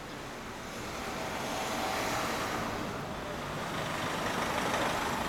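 Road traffic passing on a street: a rush of vehicle noise that swells about a second in and again near the end.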